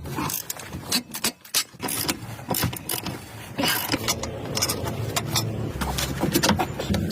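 Irregular clicks, knocks and clatter of car repair work on a Volvo, over a low hum that grows stronger in the second half.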